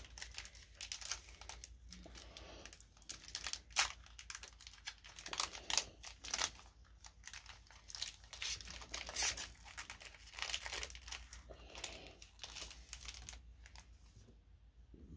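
Foil wrapper of a Pokémon TCG booster pack crinkling and tearing as it is opened, a run of irregular crackles that dies away near the end.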